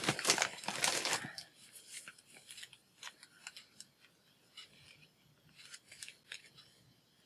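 Loud rustling of packaging for about the first second, then faint scattered clicks and scratches of fingers handling and opening a small cardboard box.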